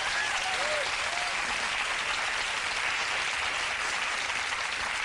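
Studio audience applauding steadily, with a faint voice or two in the first second.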